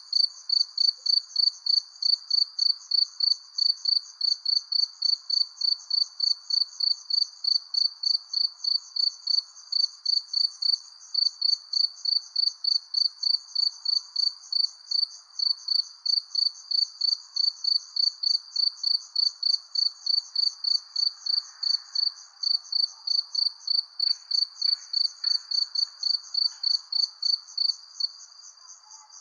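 A cricket chirping in a steady, even rhythm of about three high-pitched chirps a second, over a faint background hiss of night ambience. The chirping breaks off briefly near the end.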